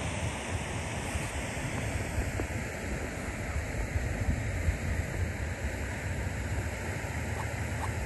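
Steady wind rushing over the microphone, with a fluctuating low rumble.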